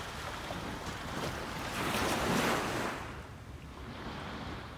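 Small waves washing in on a beach: a hiss of surf that builds to a peak about two seconds in and dies down after three.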